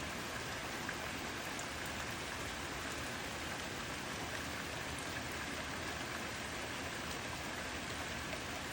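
Steady rain falling, an even hiss with faint drop ticks.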